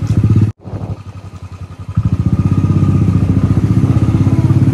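Motorcycle engine running while riding, with a rapid, even beat of firing pulses. It cuts out for an instant about half a second in, runs quieter for about a second and a half, then comes back louder.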